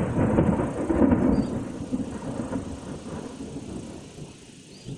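Thunder: a sudden loud crack that rolls into a low rumble, swelling again about a second in and then dying away over a few seconds.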